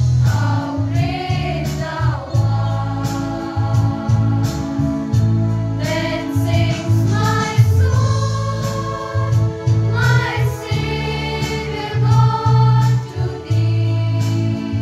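A girls' choir singing a hymn, with low sustained accompaniment notes held underneath.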